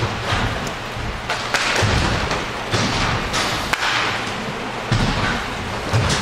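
Irregular thuds and knocks of inline hockey play, sticks and puck striking, roughly one a second.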